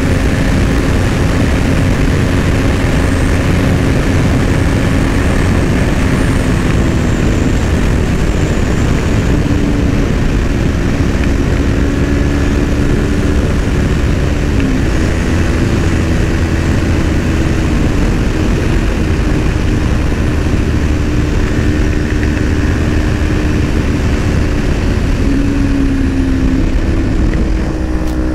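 Motorcycle engine running at a steady cruising speed, its hum holding an even pitch, under heavy wind rush on the helmet microphone.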